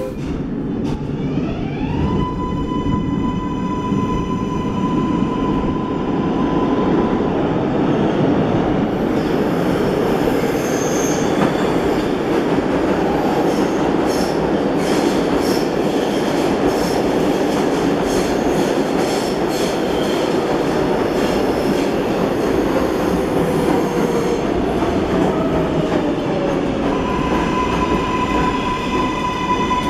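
A New York City Subway 7 train running past an underground station platform, with a steady rumble of wheels on rail. A high whine glides up just after the start and holds a steady pitch for several seconds, then comes back near the end.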